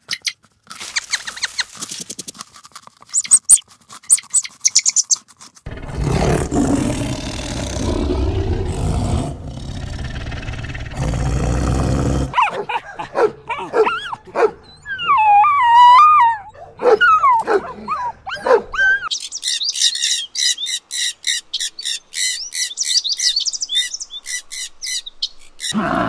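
Dogs play-fighting, vocalising in wavering whines and growls that rise and fall in pitch for several seconds. Before them comes a rough, noisy stretch, and after them a fast run of high chirps, several a second, that stops suddenly.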